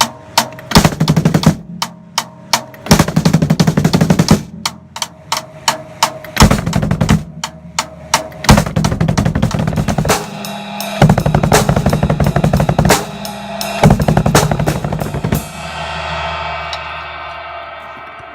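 Drum kit played metal-style with a double bass drum: stretches of separate hits alternate with fast, dense bass-drum runs under cymbals. Near the end the playing stops and a cymbal rings out and fades.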